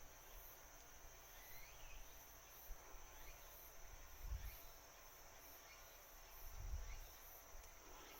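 Near silence with faint, steady, high-pitched insect chirring, and two soft low thumps, about four and a half and about seven seconds in.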